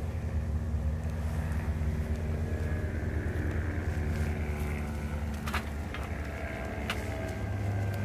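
Small wood fire of dry sticks in a metal fire bowl crackling, with a few sharp pops in the second half, over a steady low rumble.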